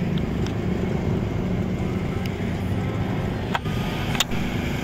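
Steady outdoor background rumble of road traffic, with a couple of faint clicks late on.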